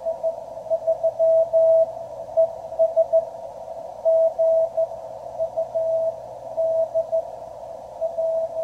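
Morse code (CW) signal received on a QRP Labs QCX transceiver: a single mid-pitched tone keyed on and off in dots and dashes over a narrow band of receiver noise.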